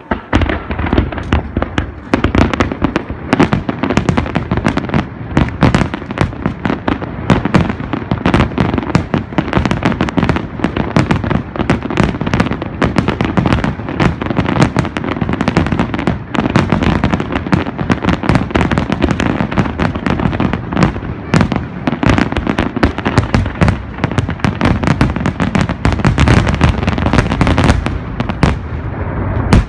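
Fireworks finale barrage: shells bursting in rapid, overlapping bangs over a continuous deep rumble, easing off near the end.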